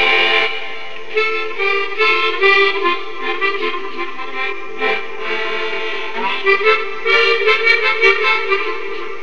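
Instrumental background music: a free-reed instrument plays a melody over a held low chord.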